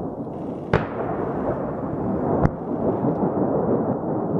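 Ammunition detonating in a burning munitions depot: a steady low rush of noise broken by two sharp bangs, about a second in and about halfway through.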